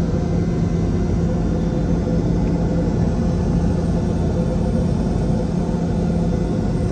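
Steady rumble and hum inside the cabin of a Boeing 717-200 with its two rear-mounted turbofans running, even in level throughout.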